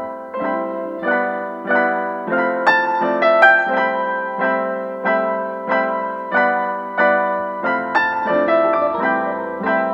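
Background piano music, notes and chords struck at an even, gentle pace of a little under two a second, with a low bass line entering near the end.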